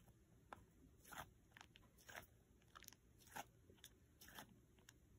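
Faint, short crunching squishes from a Nee Doh stress ball being squeezed and kneaded in the hand, about one every half second to a second.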